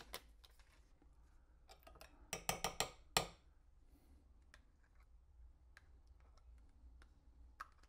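A metal spoon clicking and scraping against a small jar and a ceramic bowl as horseradish is spooned out, with a quick run of taps between two and three seconds in. Fainter scattered clicks follow as a plastic tub is opened and poured.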